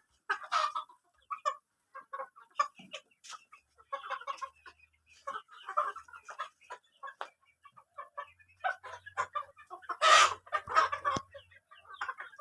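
A flock of local chickens clucking, with many short calls overlapping throughout and one louder burst about ten seconds in.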